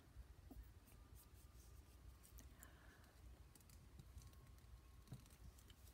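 Near silence: faint ticks and a soft rustle of paper being folded and pressed between the fingers.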